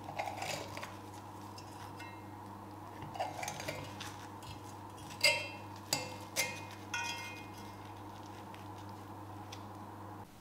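Metal fork and knife clinking and scraping against a cast-iron skillet while cutting through a Dutch baby pancake. A handful of scattered clinks, the sharpest about five seconds in, over a steady low hum.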